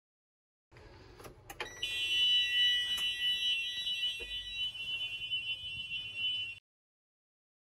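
School bus emergency-exit warning buzzer sounding a steady high-pitched tone, with a few clicks as it begins. It starts about two seconds in and cuts off abruptly near the end. The buzzer warns that the rear emergency door or the emergency roof hatch is locked.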